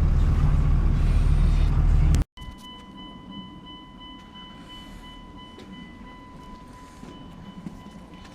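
Second-generation Cummins diesel pickup engine running loud and deep for about two seconds, then cut off abruptly. After that only a quiet background remains, with a faint steady high-pitched tone.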